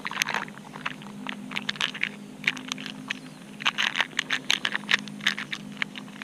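Quick, irregular clicking and rattling of small metal jig heads picked through by hand, with a faint steady low hum underneath.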